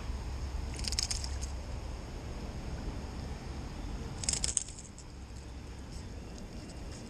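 Steady low wind rumble on the microphone, with two short crackling rustles, about a second in and again near four and a half seconds.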